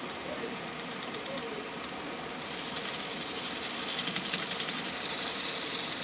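Lathe running with a steady hum while sandpaper is held against a spinning chrome-plated handle, stripping the flaking chrome. About two seconds in the sanding hiss grows louder, and it is loudest near the end.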